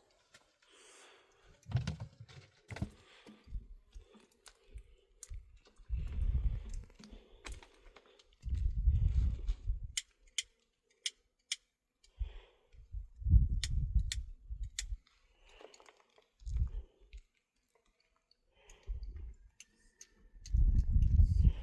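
Scattered sharp clicks and knocks, with several bursts of low rumble lasting about a second each.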